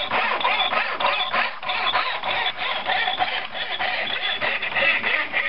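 Fine-toothed hand mitre saw cutting through a thin strip of wood: a steady rasp of back-and-forth sawing strokes.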